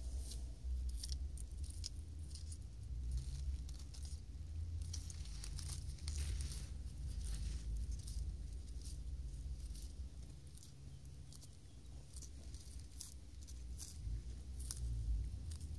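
A tortoise biting and tearing at a fresh green leaf: irregular crisp clicks and small tearing snaps as its beak crops the leaf, over a low rumble.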